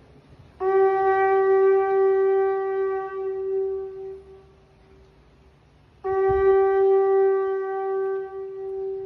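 Two long horn blasts on one steady note, each lasting about three and a half seconds, the first starting about half a second in and the second about six seconds in. There is a low thump just after the second blast begins.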